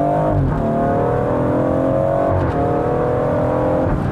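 BMW M140i's turbocharged 3.0-litre straight-six, breathing through an Akrapovic Evolution Line exhaust with no particulate filter, accelerating hard through the gears. Its pitch climbs, drops at an upshift about half a second in, climbs again, drops at another shift about two and a half seconds in, then falls near the end.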